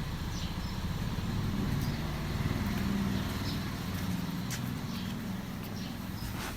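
Toyota Corolla Altis 1ZZ-FE 1.8-litre four-cylinder engine running, swelling to a mild rev about halfway through and settling back down.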